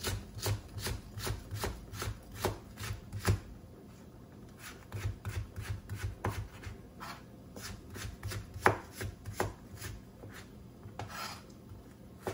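Kitchen knife slicing a carrot into thin strips on a plastic cutting board: quick, even knocks of the blade on the board, about three a second, with a pause of a second or so after about three seconds.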